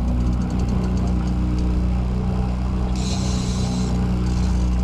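Boat's engine running steadily, a low even drone. Faint rapid ticking comes in the first second and a half, and a brief high hiss about three seconds in.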